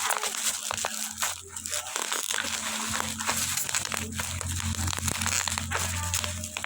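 Plastic packaging crinkling and crackling as it is handled and unwrapped by hand, in irregular bursts, over a steady low hum.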